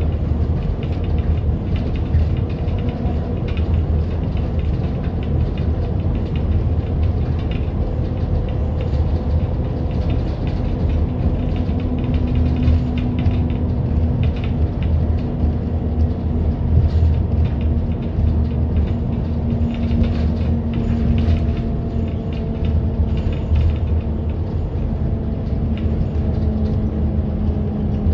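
Bus in motion, heard from on board: steady low engine and road rumble, with a faint steady whine that sinks slightly in pitch toward the end.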